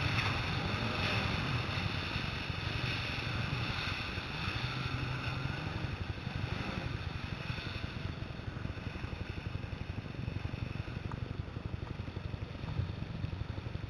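Jet ski engines running on open sea water, with wind on the microphone. The sound grows fainter over the first few seconds, then holds steady.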